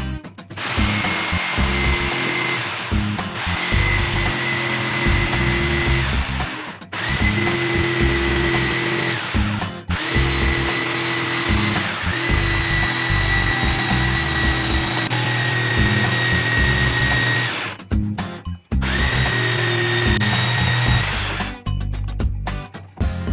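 Electric power tool motor running in five bursts of two to eight seconds each, its pitch rising briefly as it spins up at each start, then cutting off. Background music plays underneath.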